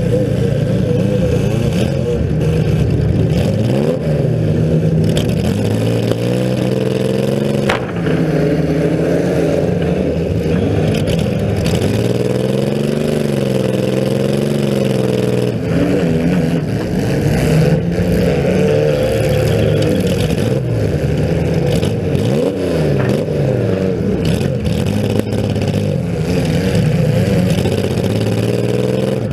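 Compact demolition derby car's engine with short open exhaust stacks through the hood, revving up and falling back over and over as it drives, with a few sharp knocks.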